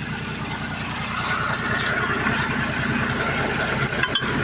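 Tractor engine running steadily, with an even, rapid firing beat.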